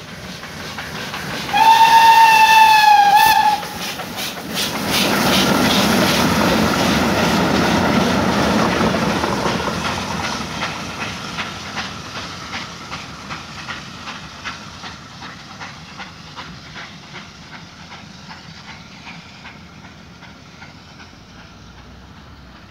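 OL49 steam locomotive blows its whistle for about two seconds, a single slightly falling tone, then passes close by, followed by its coaches with the wheels clicking over rail joints in a regular rhythm that fades as the train moves away.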